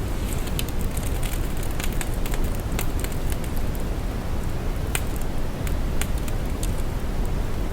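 Steady deep brown noise, a low rumbling hiss, with scattered soft crackles a few times a second at irregular intervals.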